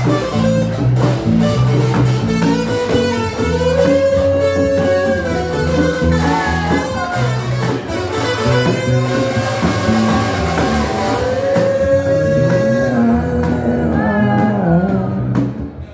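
A live band plays, with brass horns carrying long held melody notes over a bass line and a plucked string instrument.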